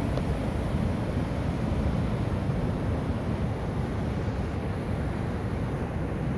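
Steady rushing roar of flowing floodwater, heaviest in the low end and unbroken, with wind buffeting the microphone.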